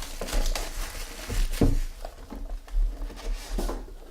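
Trading cards and pack wrappers being handled on a table: rustling and light taps, with one louder thump about a second and a half in, over a steady low hum.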